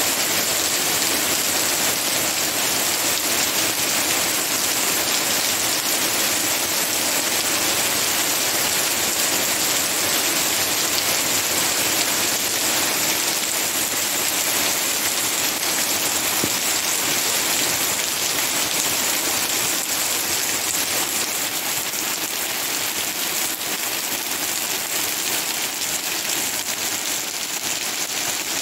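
Heavy rain falling steadily, easing off slightly about two-thirds of the way through.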